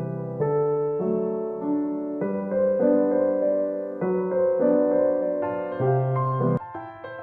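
Background music: a soft piano piece playing chords and a melody with a steady pulse.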